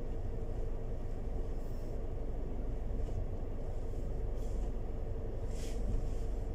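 Nissan X-Trail running at low speed, heard from inside the cabin while it is manoeuvred in a tight space: a steady low rumble with a steady hum, and a few short faint hisses.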